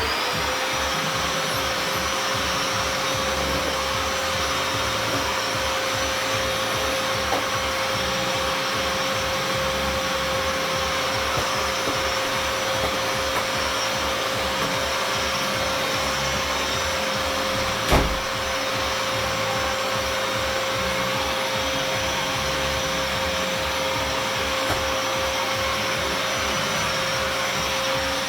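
Vacuum cleaner motor finishing its spin-up in the first half second, then running steadily with a constant whine over a loud rushing air noise. A single sharp click comes about 18 seconds in.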